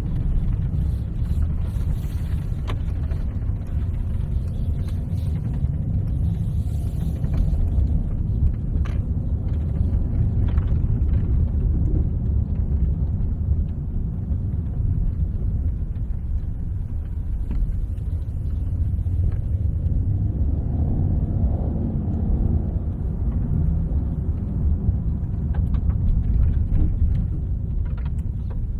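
2024 Mercedes-AMG GT 63 being driven: its twin-turbo V8 runs under a steady low rumble of engine and road noise. The engine note swells briefly about two-thirds of the way through.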